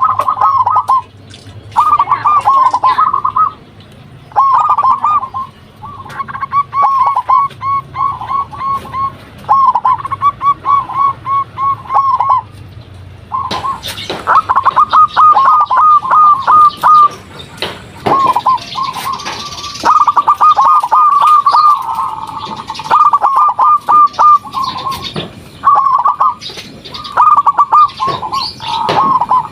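Zebra dove (perkutut) cooing: phrases of quick rolling notes near one pitch, repeated with short pauses between them. The phrases come closer together and louder from about halfway.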